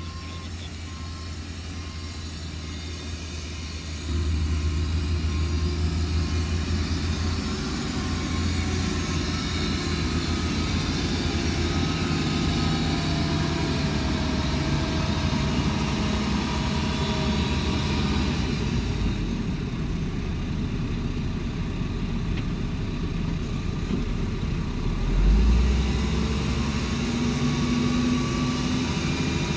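Diesel engine of a Shantui DH17C2 bulldozer running steadily while it works. It gets louder about four seconds in, as under heavier load, and gives a short low surge near the end.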